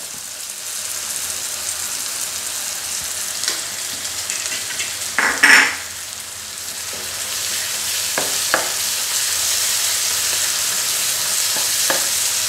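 Tomato and onion masala sizzling steadily in a nonstick frying pan, the sizzle growing louder in the second half as a spatula stirs it. There is a short louder noise near the middle and a few light spatula taps on the pan later on.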